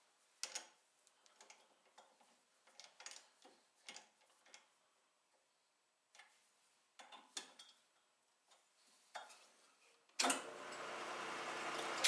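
A chuck key clicking and clinking against the four-jaw chuck of an Atlas metal lathe as the jaws are adjusted. About ten seconds in, the lathe is switched on and runs steadily, its motor and belt drive humming as the chuck spins the part.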